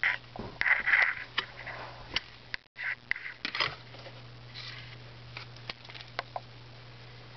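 Handling noise as a shirt is picked up and handled: irregular rustling and light clicks, busiest in the first few seconds and then sparse, over a steady low hum.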